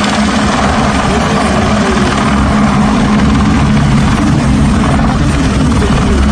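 Helicopter running close by, a loud, steady drone of turbine engine and rotor.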